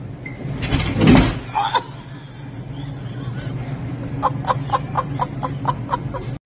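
A person laughing in quick, even bursts near the end, over a steady low hum. About a second in there is a loud noisy knock or clatter.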